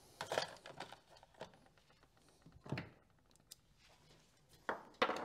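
Faint handling noise: a few soft knocks and rustles of small parts and tools being picked up, the loudest near the end.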